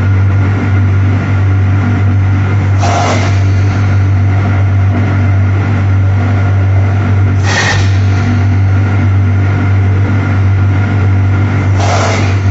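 Pulp-moulding coffee cup tray machine running with a loud steady hum. A short hiss comes three times, about every four and a half seconds.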